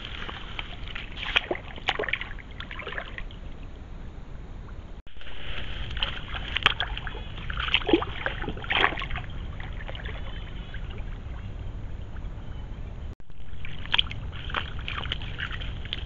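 A beaver wading through shallow water and mud: scattered splashes and sloshing in short clusters, over a steady low background hiss. The sound drops out briefly twice.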